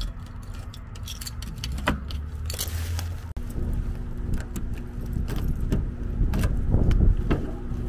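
A ring of keys jangling and clicking as a key turns in a door deadbolt, then, after a cut, as a key works a car door lock and the door handle is pulled, with sharp clicks of lock and latch.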